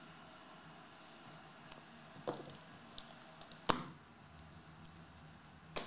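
A few light clicks and taps of a hard plastic graded card slab and a marker being handled on a desk mat, the two loudest knocks about halfway through and near the end, over a faint steady room hum.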